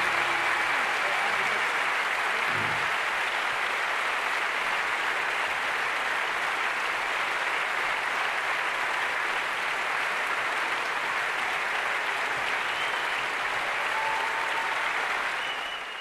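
Large theatre audience applauding steadily after the music stops, the clapping fading out at the end.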